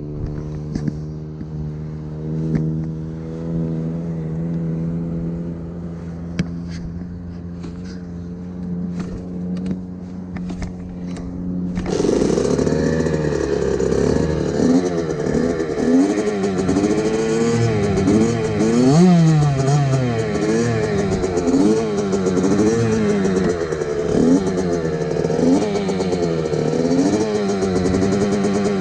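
Small motorbike engine idling steadily. About twelve seconds in it gets louder and revs, its pitch swinging up and down again and again as the bike is ridden, with a rushing noise on top.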